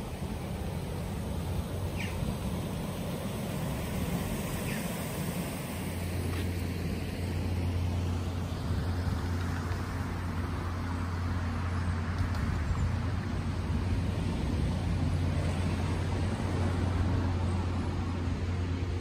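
A low, steady engine drone, most likely the idling diesel engine of a parked box lorry, growing a little stronger about six seconds in. A few short bird chirps come in the first seconds.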